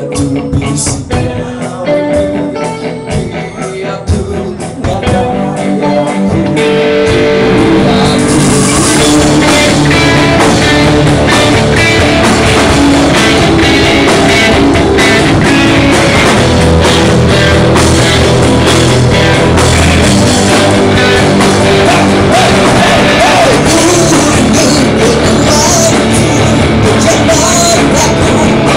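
Live rock band playing. A sparser, quieter opening gives way about six seconds in to the full band, loud, with electric guitar, drums and singing.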